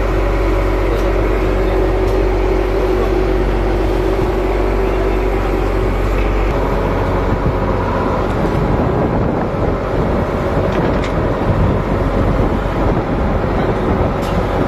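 Fishing trawler's engine running with a steady low drone, which changes about six seconds in and then turns rougher and more uneven.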